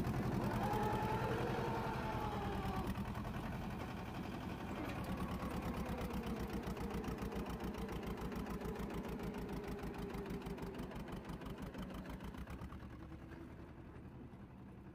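Mahindra 255 DI tractor's two-cylinder diesel engine running under load as the rear wheels dig through wet sand, its firing pulses steady. The sound fades toward the end as the tractor moves away.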